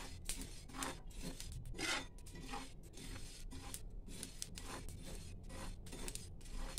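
Metal spatula scraping and stirring dry coriander, fennel and mustard seeds across a non-stick tawa, in repeated irregular strokes, as the spices are dry-roasted without oil.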